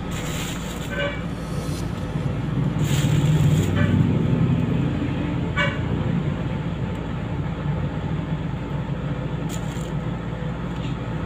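A vehicle engine running with a steady low rumble that swells about three seconds in, with a few short mouth noises from chewing santol fruit.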